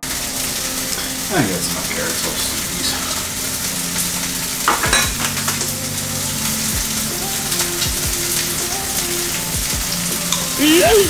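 Chicken sizzling as it fries in a hot pan, a dense steady hiss with a low hum under it. A few sharp knocks cut through, one about a second and a half in and two close together near the middle.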